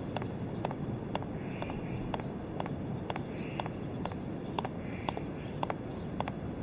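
A woman's heeled shoes clicking on hard pavement as she walks, a steady pace of about two steps a second.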